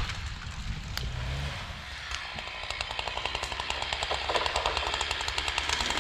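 Two-stroke chainsaw running, its rapid even firing pulses growing clearer from about halfway through, with a single sharp knock about a second in.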